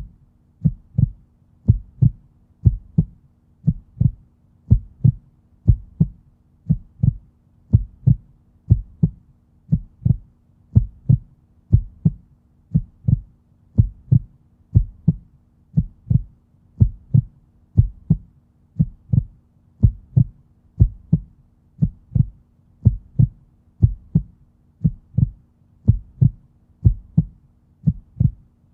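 Steady heartbeat, each beat a low double thump (lub-dub), repeating evenly at about one beat a second, with a faint steady hum underneath.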